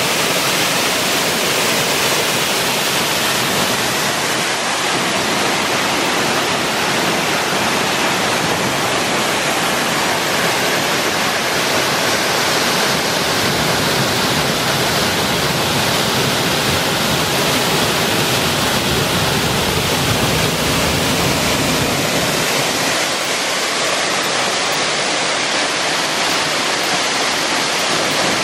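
A waterfall plunging into a rock pool: a steady, unbroken rush of falling water.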